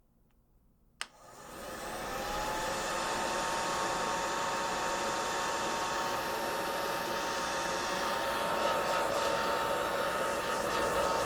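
Blow dryer switched on with a click about a second in. Its motor spins up over a second or so to a steady whine with a rush of air.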